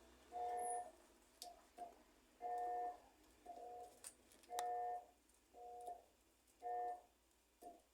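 Electrolux 13 kg top-loading washing machine's motor humming in short, even pulses about once a second, alternating stronger and weaker, as it is driven through its wash strokes. It has no force to agitate the clothes, and the fault is traced to a sparking red wire at the motor capacitor plug.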